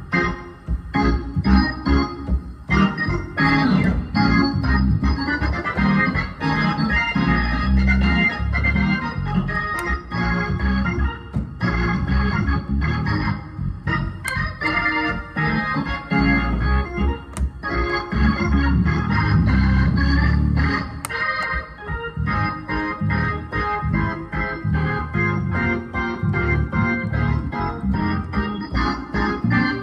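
Solo gospel keyboard playing with full, held chords and a moving melody line, no singing.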